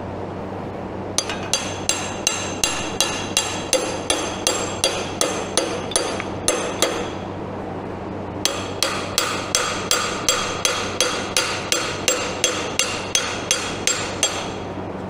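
Hammer tapping a brass punch to drive the seal head back into the barrel of a log splitter's hydraulic cylinder, seating it so the retaining C-clip can go in. Two runs of quick, even metallic taps, about three a second, with a short pause about seven seconds in.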